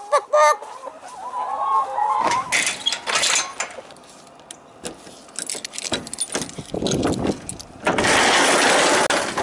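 Hens cluck briefly, then keys jangle and a key works the lock on a riveted aluminium door handle, with clicks and rattles. Near the end a loud rushing noise lasts over a second.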